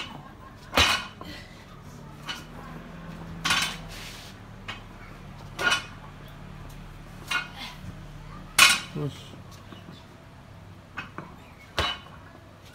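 Loaded barbell clanking through repeated power cleans: short, sharp metallic clanks as the bar and plates rattle and the bar lands, about six in all, the loudest about a second in and again near nine seconds.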